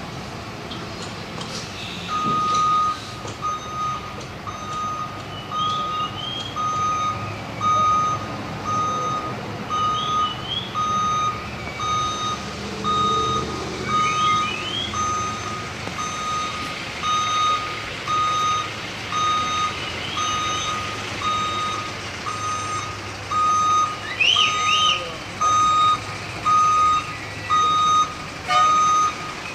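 Truck backup alarm beeping about once a second as the tractor with its double-trailer rig reverses, starting about two seconds in, over the low running of the diesel engine.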